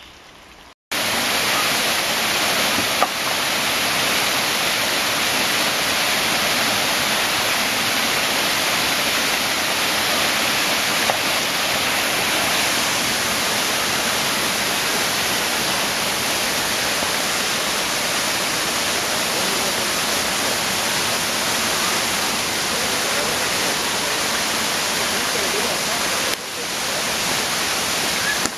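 Waterfall rushing: a steady, loud wash of falling water that starts suddenly about a second in.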